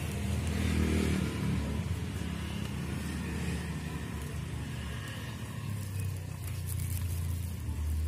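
Steady low rumble.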